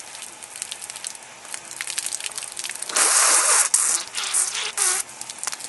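Water from a garden hose splashing and dripping, then about three seconds in a loud gushing spray. Shorter spurts and sputters follow as water is blown out of a mouth full of hose water.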